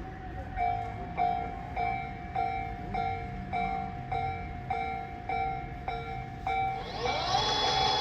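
Japanese railway level-crossing alarm ringing its electronic ding, about one strike every 0.6 s. About seven seconds in, a train's rising whine joins and grows louder.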